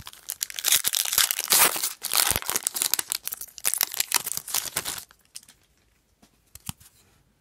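Foil trading-card pack wrapper being torn open and crinkled, a dense crackling for about five seconds, then a few faint clicks as the cards are handled.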